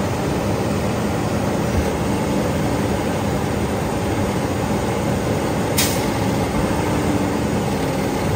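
Peterbilt 320 garbage truck with a Labrie Expert side-loader body, its engine running steadily at a standstill, with one brief hiss about six seconds in.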